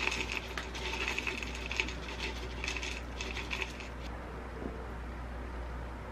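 Dry granola rattling and clattering out of a plastic bottle into a plastic yogurt cup, in several spurts of small clicks, stopping about four seconds in.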